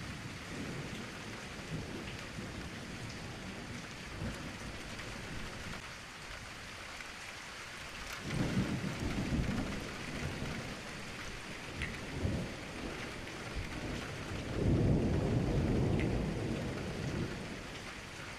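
Steady rain with thunder rolling: a rumble a little under halfway through, a brief one after it, and the loudest, longest roll near the end.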